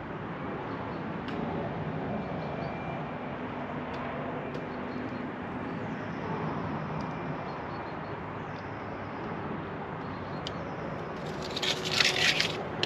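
Transfer tape being peeled off a vinyl dash decal: a loud crackling rustle about a second and a half long near the end. Under it runs a steady low background hum with a few faint clicks.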